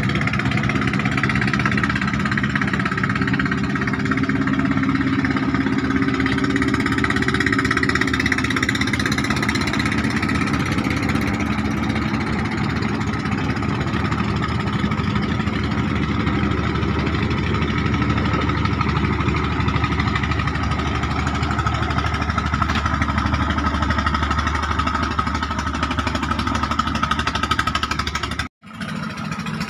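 Klotok river boat's diesel engine running steadily at a constant pitch; the sound drops out for an instant near the end.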